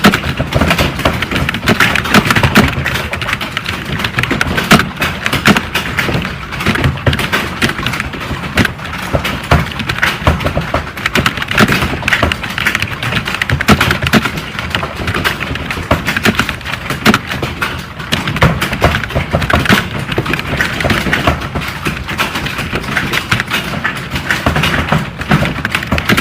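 Computer keyboard typing: a dense, continuous clatter of key clicks at a fast, uneven pace, as in a timed typing test.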